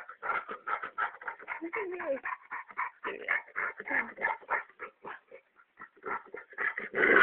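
Dog being massaged, making a rapid string of short, breathy vocal noises, about five a second, with a couple of whiny falling notes about two seconds in.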